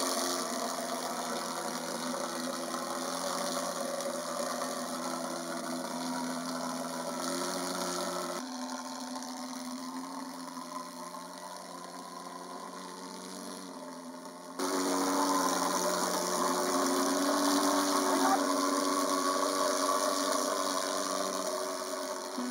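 Handheld thermal fogging machine's pulse-jet engine running with a steady drone as it blows out insecticide fog. It drops quieter about a third of the way in and jumps back louder just past the middle.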